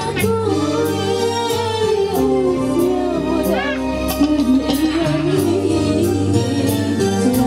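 Live dangdut band playing: a woman sings a wavering, ornamented melody through the PA over keyboard, electric guitar and a steady beat.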